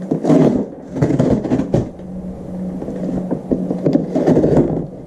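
Handling noise from keyboard parts being moved about on a desk: a series of irregular knocks, clicks and rustles over a steady low hum.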